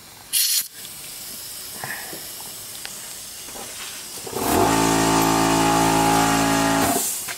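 Compressed air hissing as the compressor hose is coupled to the adapter in a spark plug hole: a short sharp burst of air about half a second in, then a steady fainter hiss as the cylinder is pressurised to look for a head gasket leak into the coolant. About four and a half seconds in, a louder steady droning tone starts, runs for about two and a half seconds and cuts off abruptly.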